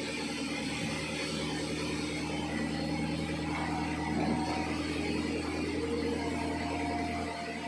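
Sawmill machinery running with a steady, even hum; its deepest part drops away about seven seconds in.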